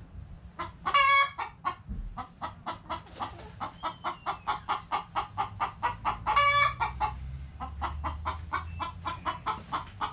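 Chickens clucking in a rapid run of short clucks, about four or five a second, broken by two louder drawn-out calls, one about a second in and one about six seconds in.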